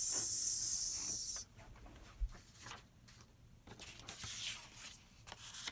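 A woman's voice holding a long hissing 'sss', the letter S sound sustained as a continuous sound, for about a second and a half. It is followed by a few faint soft rustles and taps.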